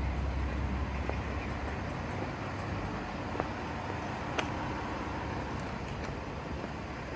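Steady low rumble of motor vehicle traffic, with two short light clicks about three and a half and four and a half seconds in.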